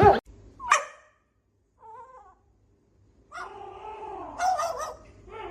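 A dog yelping once, with a short call that falls in pitch about a second in. Then, from about three seconds on, it makes drawn-out whining sounds that waver in pitch.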